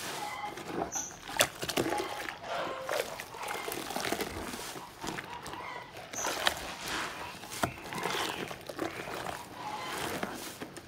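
A foamy, soap-soaked sponge squeezed and wrung by rubber-gloved hands in a basin of suds: irregular wet squelching, with crackling foam and water splashing back into the basin.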